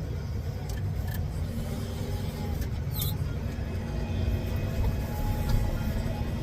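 Tractor engine running steadily with a low rumble, with a few light clicks over it.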